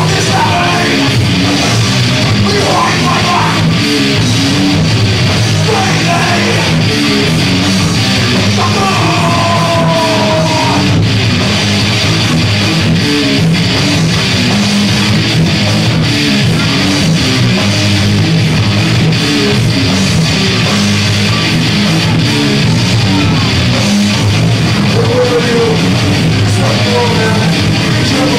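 Live band playing loud, heavy rock: distorted electric guitars, bass and drum kit, heard from within the audience.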